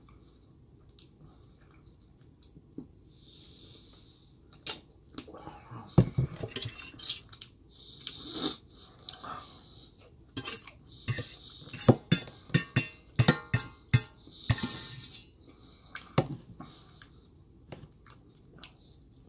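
Metal fork clinking and scraping against a stainless steel plate as rice is scooped up. It is many sharp, irregular clicks that start about five seconds in, after a quiet opening.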